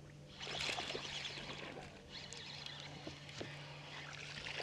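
Water splashing in short bursts as a hooked bass is reeled to the side of the boat, over a faint steady low hum.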